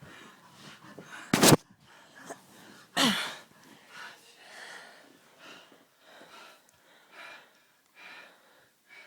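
A man's wheezing, gasping laughter while being tickled. A very loud sharp burst comes about a second and a half in and a loud cry falling in pitch follows at about three seconds. After that come short breathy wheezes about once a second, growing fainter.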